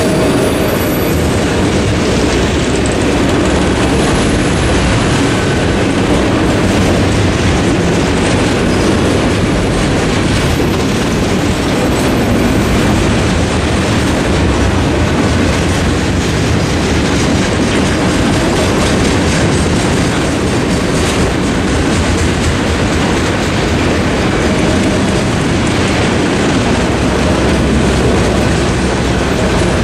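Freight train of autorack cars rolling past on jointed track: a steady, loud rumble and clatter of steel wheels on rail.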